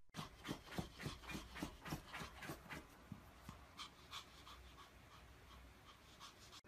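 Dog panting rapidly, about three breaths a second, growing fainter toward the end.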